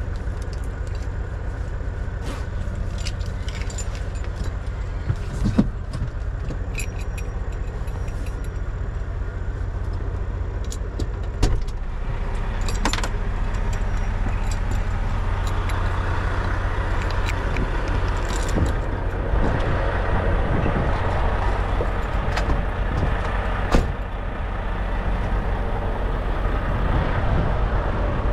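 Volvo semi-truck on the road, heard from the cab: a steady low engine drone and road noise, with frequent small rattles and clicks and three sharper knocks. The drone grows a little louder about halfway through.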